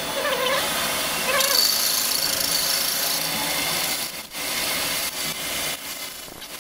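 Metal lathe running with a cutting tool scraping into a spinning rusty steel tube, a steady harsh grinding hiss of the cut, broken briefly a little past four seconds in.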